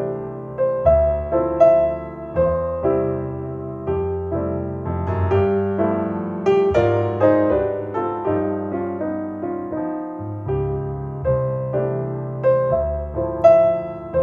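Solo piano music played back through Paradigm Persona 7F hi-fi loudspeakers driven by an Accuphase E-4000 integrated amplifier: a slow melody of single notes, each with a clear attack and ringing decay, over sustained low notes.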